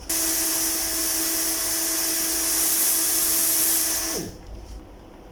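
Heat gun running: a steady rush of blown air with a motor hum for about four seconds, then switched off, the hum falling in pitch as the fan spins down.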